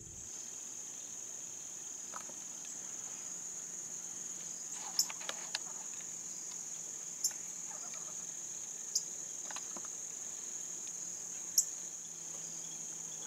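Steady high-pitched chorus of crickets in a field, with a few brief sharp ticks scattered through it.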